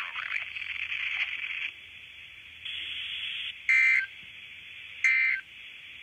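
Emergency Alert System data bursts received over a scanner radio: three short, loud screeching two-tone bursts about 1.3 seconds apart, the end-of-message signal of the weekly test. Before them the radio voice trails off and a brief patch of radio hiss sounds.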